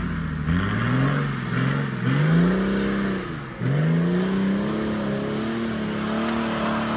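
Isuzu Trooper's engine revving hard under load as the 4x4 climbs a steep, rutted hill. The revs rise about half a second in, drop briefly around halfway, then sweep back up and stay high.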